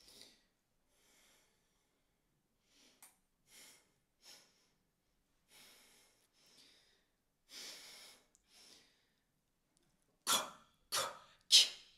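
A performer's voice used as breath sound: irregular short breathy puffs and intakes without any pitch, faint at first, then a run of louder, sharper breaths near the end.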